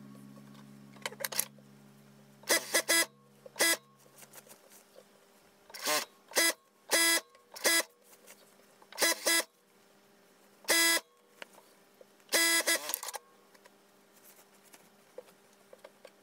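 Computerized industrial lockstitch sewing machine running in short bursts, each a brief whine that speeds up and stops, about a dozen times as the fabric is fed through in stages.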